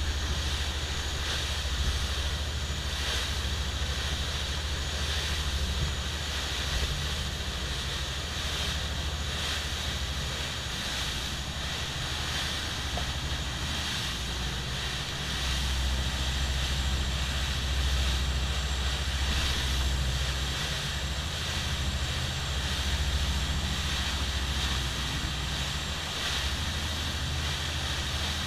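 Sportfishing boat's engines running steadily under way, a low, even drone with a hiss of wind and rushing water over it.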